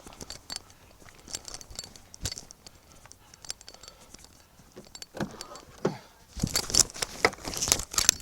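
Keys jangling and clicking: scattered light clicks at first, then a louder, busier rattle from about six seconds in.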